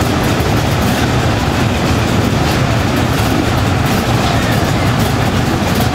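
Many enduro motorcycle engines running at once in a crowded start area, merging into a loud, steady, dense din.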